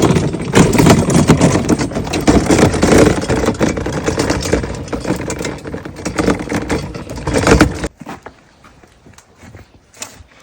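Loud, dense rattling and rustling noise that stops suddenly about eight seconds in, followed by a few faint clicks.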